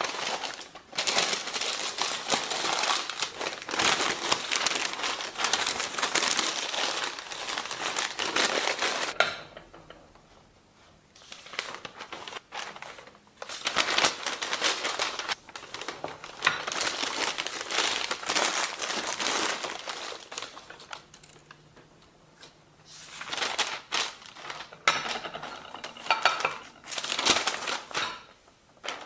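Sheets of packing paper rustling and crinkling as ceramic plates are wrapped, with now and then a plate clinking against another. The rustling stops briefly about ten seconds in and again a little past twenty seconds.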